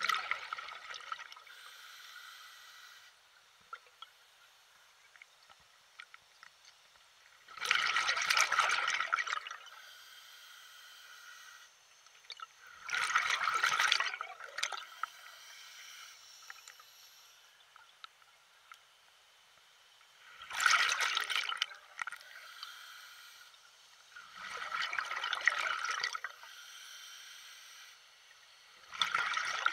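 Water sloshing and splashing in separate bursts of one to two seconds each, coming every four to eight seconds, with faint trickling in between.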